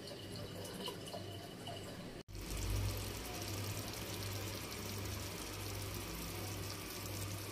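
Pasta in tomato sauce sizzling and bubbling in a frying pan on the stove as the cheese on top melts, a steady hiss that gets louder about two seconds in. A low hum runs underneath.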